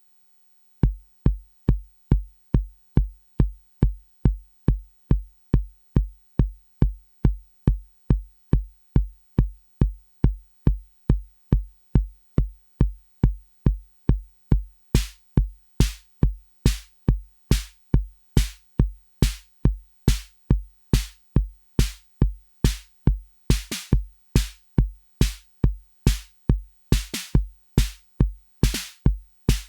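Analog drum machine voices, a DIY TR-606 clone triggered by a step sequencer, playing a steady four-on-the-floor pattern: a deep bass drum about two and a half times a second from about a second in. About halfway through, bright hi-hat or snare hits join on the beats, with quicker added hits toward the end.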